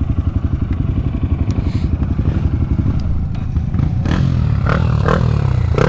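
Trail motorcycle engine running at low speed with a rapid even pulse, then picking up revs about four seconds in.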